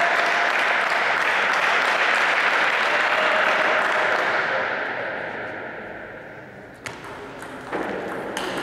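Spectators applauding after a point in a table tennis match, the clapping fading out over about five seconds. A couple of sharp taps follow near the end.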